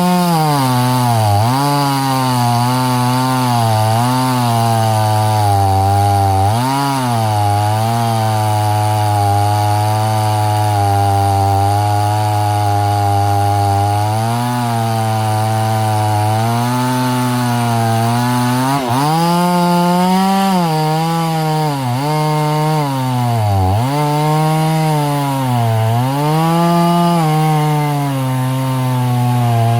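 Husqvarna 50 Rancher two-stroke chainsaw cutting wood, its engine note dipping again and again as the chain loads up in the cut and then picking back up.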